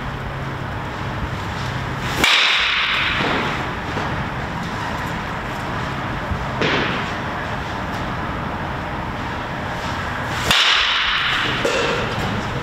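Baseball bat hitting pitched balls in batting practice: two sharp cracks about eight seconds apart, each ringing on for about a second, with a softer knock between them.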